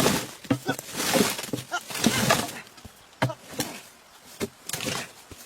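Timber being worked by hand: three noisy strokes about a second apart, then a few sharp knocks.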